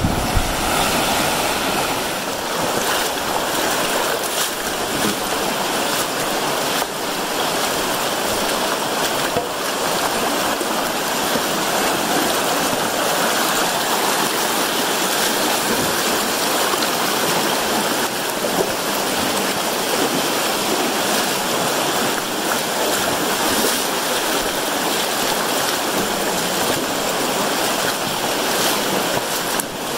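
Steady rush of shallow river water in the Virgin River, with splashing from legs wading through it.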